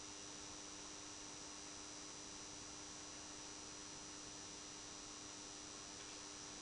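Faint, steady electrical mains hum from a running 400 W high-pressure sodium lamp setup (Tesla SHC) still warming up, a couple of low steady tones over a constant hiss.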